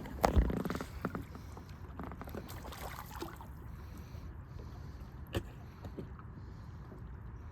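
Knocks and clatter of gear being handled aboard a small fishing boat, then a steady low rumble with one sharp knock about five seconds in.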